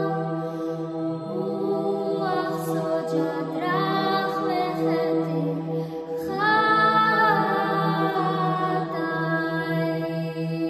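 Georgian women's vocal trio singing a cappella in close harmony over a steady low drone. The voices come in about two seconds in, are loudest a little past the middle, and fall away near the end, leaving the held drone.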